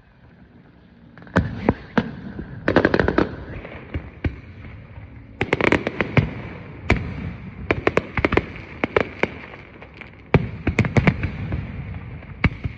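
Aerial fireworks going off in volleys: clusters of sharp bangs and crackles every second or two, after a brief lull at the start.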